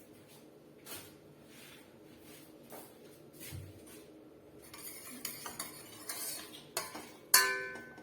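A metal spoon stirring jaggery into a pot of herbal decoction so it dissolves, scraping and clinking against the pot from about halfway in. Near the end the spoon strikes the pot once with a loud, ringing clank.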